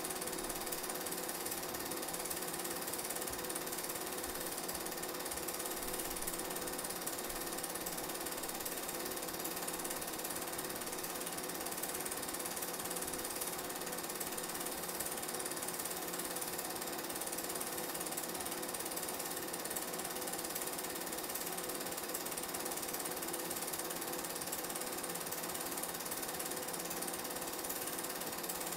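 Film projector running steadily: an unbroken mechanical whirring clatter with hiss, unchanging throughout.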